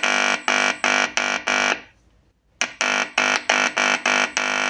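Buzzy electronic tone pulsing about three times a second through the loudspeaker of a repaired set-top box amplifier, with a short break in the middle and a longer tone near the end. Sound is coming through again after a bad solder joint in the amplifier circuit was redone.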